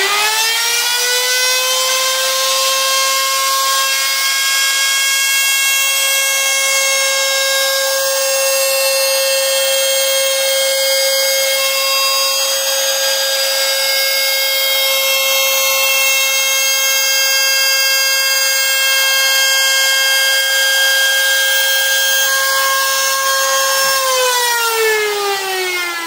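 Trim router with a 6 mm end mill switched on, spinning up quickly to a high steady whine as it mills along the edge of an aluminium sheet. It runs steadily for most of the time, then is switched off about two seconds before the end and winds down in a falling whine.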